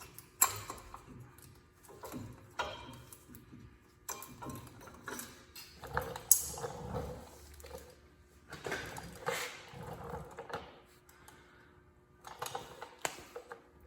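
Irregular clicks, taps and light scraping of brake pads and their metal hardware being handled by hand.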